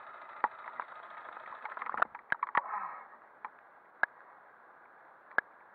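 Sharp clicks and knocks as a fallen motorcycle is handled and hauled up out of the mud, a cluster of them about two seconds in and single ones later. They sit over a steady hiss that drops away about three seconds in.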